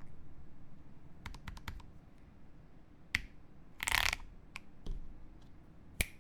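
Sparse keystrokes on a mechanical keyboard with lubed Ajazz Giwi linear switches, a POM plate and PBT keycaps. A quick run of about five keystrokes comes about a second in, then single key presses a second or so apart, with a longer, louder, noisier clack around the middle.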